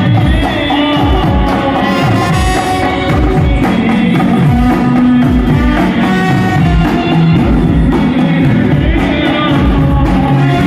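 Loud Indian band music with a steady, heavy drum beat under a melody and singing.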